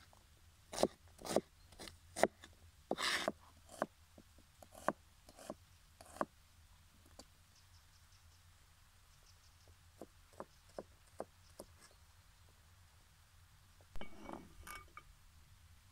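Chef's knife dicing onion on a plastic cutting board: irregular sharp knocks of the blade on the board, loudest in the first few seconds, then sparser, fainter taps. Near the end comes a brief scrape as the blade sweeps the diced onion across the board.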